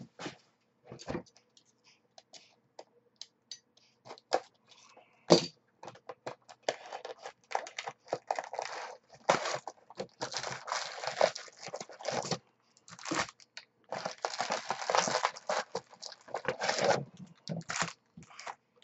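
Plastic wrapping tearing and crinkling as a sealed box of trading cards is opened and its foil packs are pulled out. Scattered clicks and taps come first, then long stretches of crinkling.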